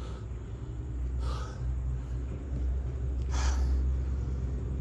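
Steady low rumble on the microphone, with two short breathy sounds, one about a second in and one about three and a half seconds in.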